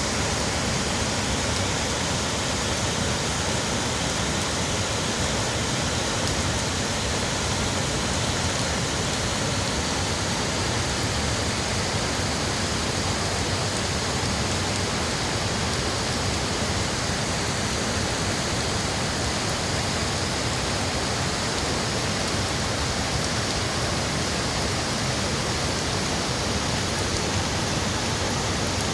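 Mo Paeng waterfall running high after a night of continuous rain, a steady, unbroken rush of falling water.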